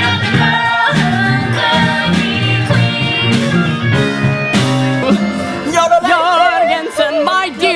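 Musical-theatre song: several voices singing with instrumental accompaniment. About six seconds in it cuts to a different song, a voice singing with a wide vibrato.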